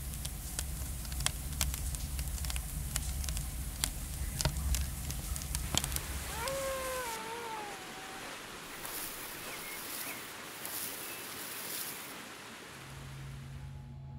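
Virtual-world ambience: a crackling fire over a low rumble for the first six seconds, then a single long, falling cat meow. After it comes a steady high hiss with a few faint chirps, and near the end a low steady hum sets in.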